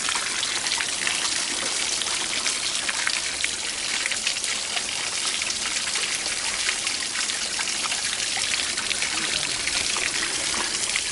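Water rushing through and splashing inside a clear acrylic pressure-probe test box fed by a hose, with many small drips and splashes over a steady wash of running water.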